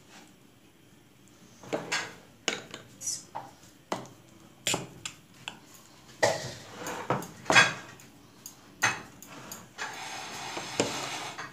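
Metal spoon scraping and clinking against a metal pizza pan while spreading sauce over the dough: irregular taps and scrapes, with a longer stretch of scraping near the end.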